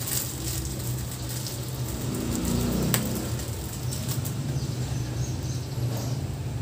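Steady low hum, with light crinkling and clicking of plastic fruiting bags and rubber bands as they are handled and tied shut.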